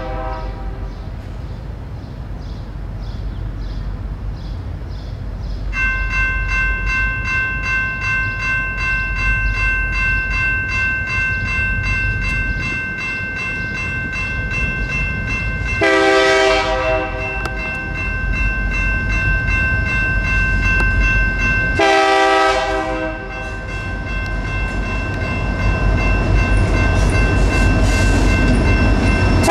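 A diesel freight locomotive's air horn sounds in separate blasts: one ending just at the start, two about six seconds apart in the middle, and another starting at the very end, over the low rumble of the approaching train. From about six seconds in, electronic railroad crossing bells ring steadily.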